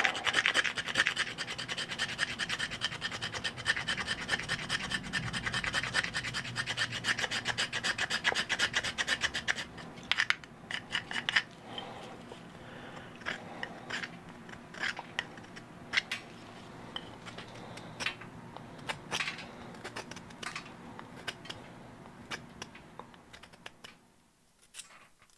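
Knife scraping a stick of fatwood (resin-rich pine) to shave off fine dust and curls. The scraping is rapid and steady for about the first ten seconds, then goes on as slower, separate strokes, and stops shortly before the end.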